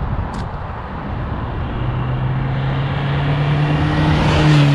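VW T3 Transporter van with a swapped 1.9 TDI (AFN) turbodiesel engine driving up and passing close by. Its steady engine hum grows louder as it approaches and starts to drop in pitch just as it goes past near the end, with tyre and wind noise.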